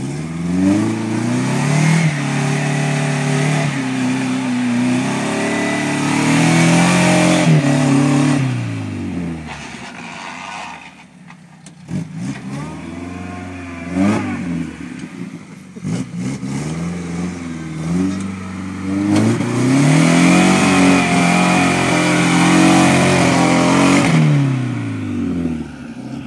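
Jeep Wrangler YJ engine revving hard on a slick mud bank climb. It runs up to a high, held pitch for several seconds and falls back, gives a few short blips in the middle, then makes a second long high-rev run that drops away near the end.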